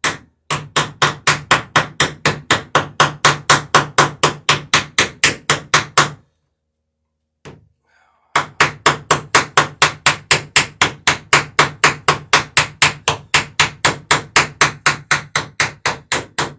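Ball-peen hammer rapidly peening copper rivets over on the planking of a wooden dory, about five sharp blows a second. The blows come in two long runs with a short pause and a single light tap between them.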